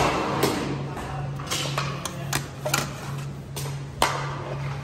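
Metal plates knocking and scraping against a large cooking pot and serving trays as cooked rice is scooped out: an irregular run of sharp clinks and clatters.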